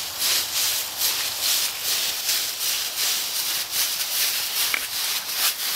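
Dry fallen leaves crunching and rustling under a toddler's stomping footsteps, about two crunches a second.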